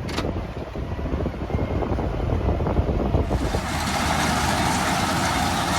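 Tractor engine running as the tractor pulls away. About three seconds in, a steady rushing noise comes up over the engine.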